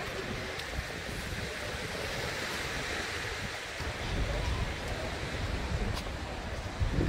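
Small waves washing onto a sand beach, a steady rushing hiss, with wind buffeting the microphone from about four to six seconds in.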